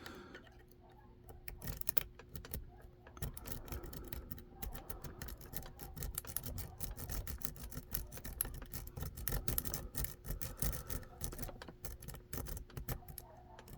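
A double peak rake scrubbing rapidly in and out of the keyway of a Zeiss Ikon SK6 lock cylinder while a pry bar holds tension: a dense, irregular run of small metallic clicks and scrapes as the pins are raked. It starts about a second and a half in.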